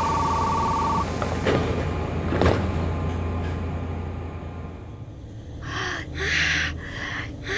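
Train sound effects: a pulsing two-tone door-closing warning chime stops about a second in, over a steady low train rumble with a couple of clunks, and the rumble fades. Near the end a woman pants heavily, out of breath after rushing aboard.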